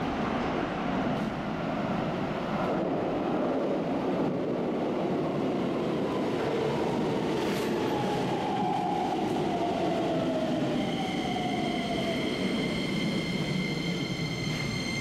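Keikyu 1000 series 1800-subseries electric train running into an underground station and braking: a steady rumble of wheels on rail, with a whine that falls in pitch as it slows. Several steady high whines come in near the end as it nears a stop.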